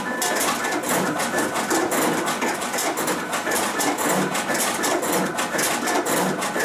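SCCP B digital finishing machine running at full speed. Its vacuum feeder pulls sheets in one after another to be slit, cut and creased, at about one sheet a second. The result is a steady mechanical clatter of rapid clicks, with a low thump roughly once a second.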